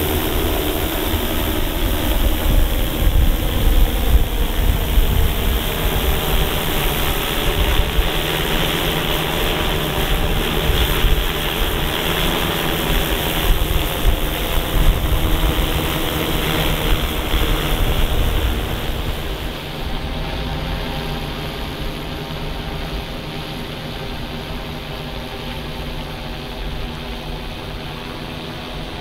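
Multirotor drone's propellers running with a steady, many-toned buzz as it hovers, over a rumble of wind on the microphone. A little after two-thirds of the way through the sound becomes quieter and duller.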